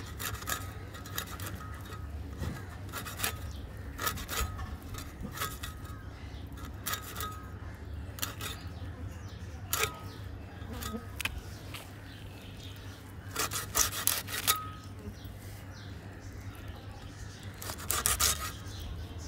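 Ribbon fish being scraped and cut against a fixed upright iron blade, in short irregular scraping strokes with a faint metallic ring. A cluster of louder strokes comes about two-thirds through and another near the end.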